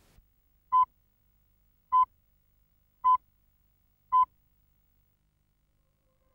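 Countdown-leader beeps: four short, high-pitched electronic tones, one about every second, marking the count at the head of a videotape.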